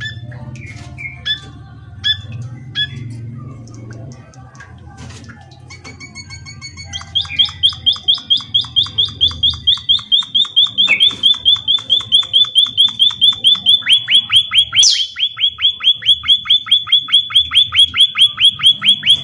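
Emprit (munia) birdsong: a few separate high chirps, then from about seven seconds in a long, rapid series of short high notes repeated about five times a second.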